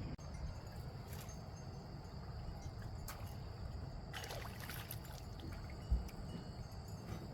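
Water splashing and trickling around a small boat on a lake, with a steady low rumble of wind underneath. A few soft splashes come and go, and there is a dull knock about six seconds in.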